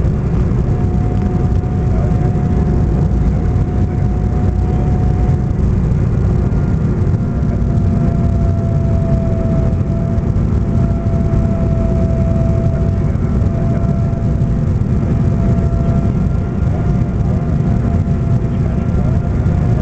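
Cabin noise inside an Embraer E-190 on its landing approach: a steady low rumble of airflow and the twin turbofans, with a thin steady whine over it whose pitch shifts slightly a few times.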